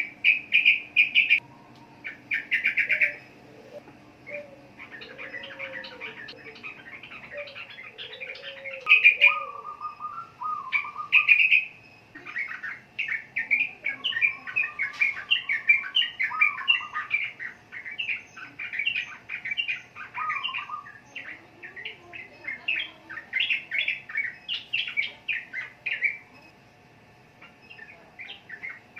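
Yellow-vented bulbul (trucukan) singing a rapid, chattering song: bursts of quick, short notes, with some lower slurred whistles mixed in and a brief lull near the end.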